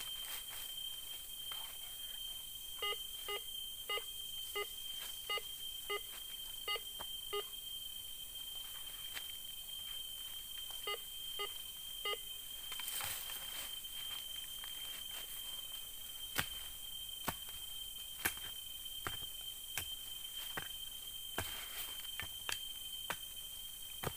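Handheld metal detector beeping, a short pitched beep each time its coil passes over a dug hole: about eight beeps, then three more a few seconds later, which shows metal still in the hole. A steady high whine sounds throughout, and scattered knocks follow in the second half.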